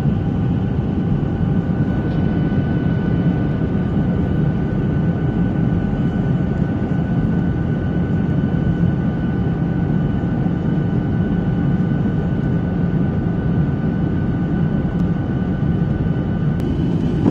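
Cabin noise of a jet airliner on its approach, heard from a window seat over the wing: a steady low rush of engine and airflow with several thin steady whining tones on top.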